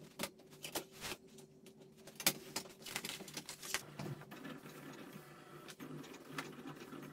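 Electronic vinyl-cutting machine at work: a steady motor hum under irregular sharp clicks and ticks as it cuts the heat-transfer vinyl sheet.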